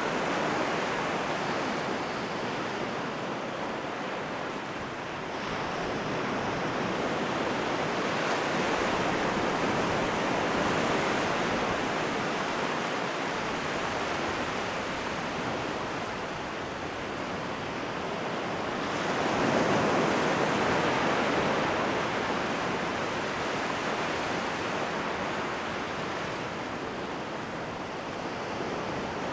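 Low sea waves breaking and washing up a flat sandy beach, a steady surf wash that swells and eases in slow surges, loudest about two-thirds of the way through.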